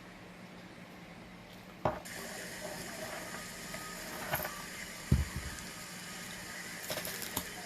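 Small objects being handled and set down on a hard surface: a sharp click about two seconds in, scattered knocks, and one low thump about five seconds in, over a steady hum and a hiss that starts about two seconds in.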